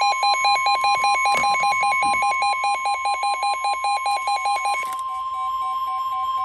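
NOAA Weather Radio warning alarm tone: a loud, steady 1050 Hz tone. A second, rapidly pulsing beep sounds over it, stops about five seconds in and comes back fainter near the end.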